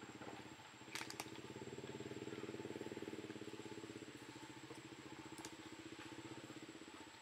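A small engine idling steadily and faintly, which stops near the end. A couple of sharp clicks come about a second in and again past five seconds.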